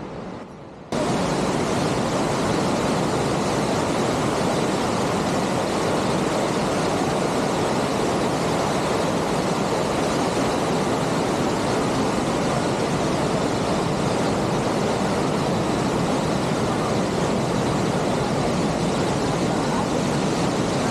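Rushing whitewater of a mountain cascade and waterfalls: a loud, steady roar of water that starts suddenly about a second in and holds even throughout.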